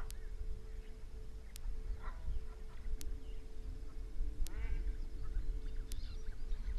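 Egyptian geese giving harsh, honking calls in a few short bouts, about two seconds in and again from about four and a half seconds on, over a low steady rumble. A faint click repeats about every second and a half.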